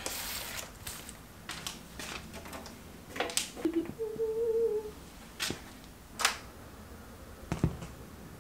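Quiet handling of a vinyl record: soft rustling and taps as the record comes out of its sleeve and is set on the turntable, with several sharp clicks of the turntable near the end. A short soft tone comes about four seconds in.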